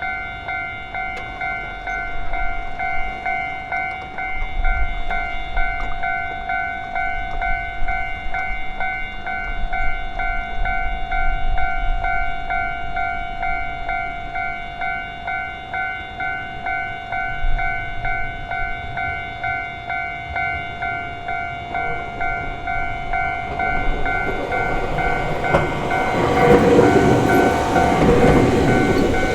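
Japanese level-crossing warning bell ringing in a steady, evenly repeating rhythm. About 23 seconds in, a Gakunan Railway electric train approaches and runs over the crossing, its wheels clacking on the rails; the train is the loudest sound near the end while the bell keeps ringing.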